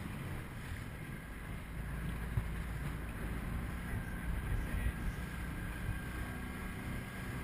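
Small speedboat under way at speed: a steady low rumble of the motor and rushing water, with wind buffeting the microphone and a few small knocks.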